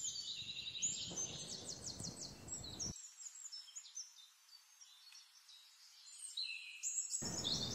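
Several birds chirping and singing, with rapid high trills over a low outdoor background. The low background drops away for a few seconds in the middle while the birdsong carries on.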